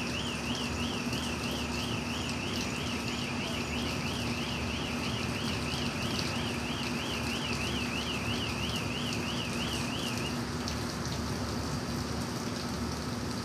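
A high, warbling electronic alarm tone, rising and falling about two and a half times a second, over a steady machine hum and hiss; the warble stops about ten seconds in.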